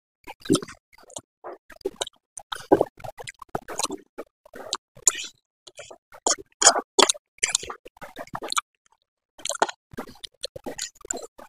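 Close-miked eating of Korean noodles: irregular slurps and wet chewing smacks and clicks, with a short pause a little past the middle.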